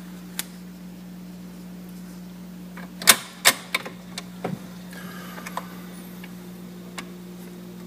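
Dual 1019 automatic turntable being started by hand: its changer mechanism gives a series of sharp mechanical clicks and clunks, the loudest pair a little after three seconds, over a steady low hum.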